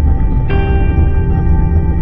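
Ambient background music of sustained, held tones, with a new chord coming in about half a second in, over a steady low rumble.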